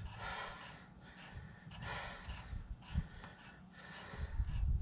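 A man breathing heavily in puffs with effort as he winds in the screw of a hub puller, with a brief low thump about three seconds in.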